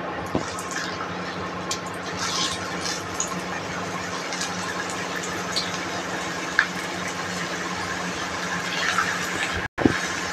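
Thin potato slices deep-frying in hot oil in an aluminium pan: a steady sizzle with scattered pops and crackles. Near the end the sound drops out briefly and comes back with a sharp click.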